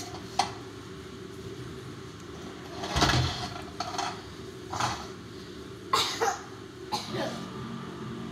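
A child's several short coughs and breathy exhalations, the loudest about three seconds in, as he reacts to a super-sour candy. Faint background music runs underneath.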